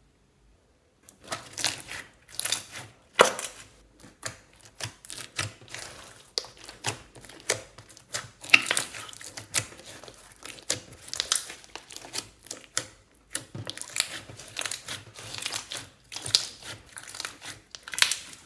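Translucent glitter slime with foam beads being stretched, squeezed and pressed by hand: irregular sticky crackles and pops, starting about a second in.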